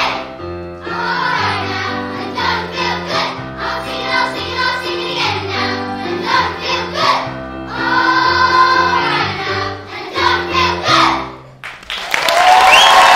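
Children's choir singing with electronic keyboard accompaniment, ending on a held chord. About a second and a half before the end, loud audience applause breaks out.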